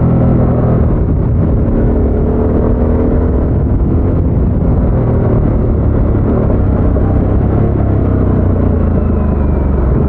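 Harley-Davidson Sportster S's Revolution Max 1250 V-twin running through its stock exhaust at a fairly steady engine speed.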